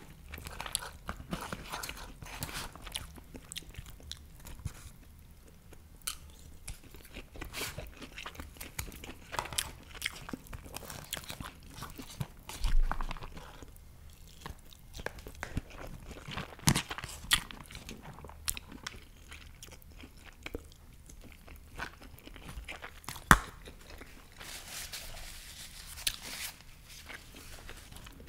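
Close-miked chewing and biting of rice and meat, with wet mouth sounds and crunching. A plastic fork clicks and scrapes against a clear plastic takeout container, and a few louder knocks stand out, about 13, 17 and 23 seconds in.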